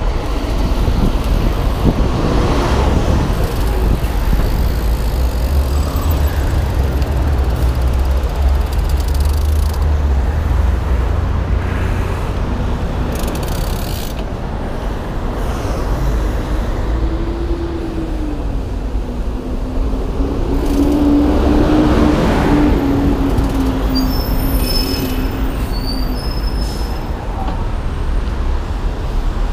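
Steady low rumble of a mountain bike rolling along a city pavement, with road traffic going by. Past the middle, a passing vehicle's engine drone holds a steady pitch for several seconds.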